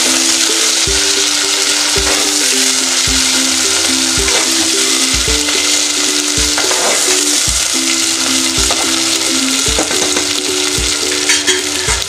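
Sliced onions sizzling as they fry in hot mustard oil, stirred with a slotted metal spatula in the pot. Background music with a steady beat plays underneath.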